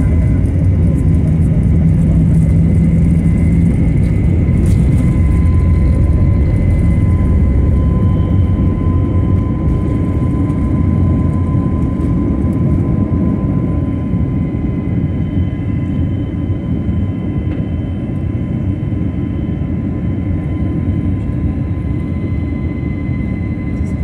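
Airliner's jet engines at takeoff power, heard from inside the cabin: a loud, deep rumble with a steady high whine, as the plane rolls down the runway and lifts off. The rumble eases somewhat after about halfway.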